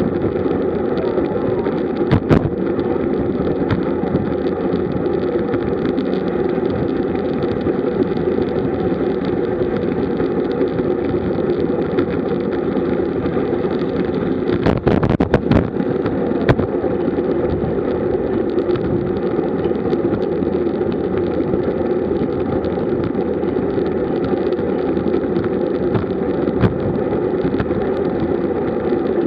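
Steady rumble of wind and tyre noise on a bike-mounted camera riding at around 40 km/h, with a few sharp knocks about two and fifteen seconds in.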